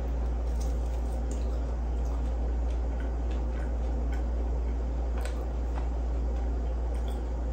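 A person chewing a bite of French toast stick, with soft scattered mouth clicks and wet smacks, over a steady low hum.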